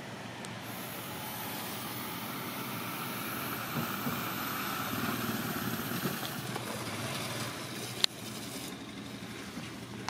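A motor vehicle passing by: engine and road noise builds over a few seconds, peaks, and fades away. A single sharp click comes about eight seconds in.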